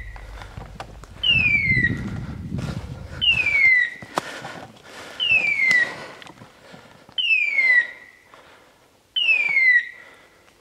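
Dog beeper collar sounding a falling electronic tone, five times about two seconds apart, the repeated signal of a pointing dog on point. Low rustling through brush and a few twig snaps in the first few seconds.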